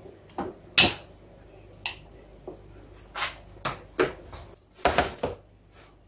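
Kitchen handling noises: about ten short knocks and clinks of utensils and dishes being picked up and set down, irregularly spaced.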